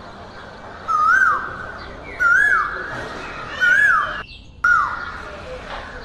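A bird calling repeatedly over a steady jungle background: four identical short notes, each rising then quickly falling, about every second and a half. The sound cuts out for a moment about four seconds in.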